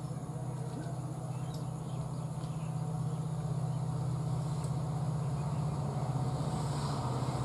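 Diesel locomotive (WDP-4, EMD two-stroke V16) approaching under power: a steady, low, fast-throbbing engine drone that grows gradually louder as it nears.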